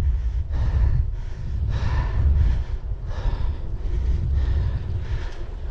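Wind buffeting the microphone on a moving e-bike, a steady low rumble, with the rider's hard, rhythmic breathing over it.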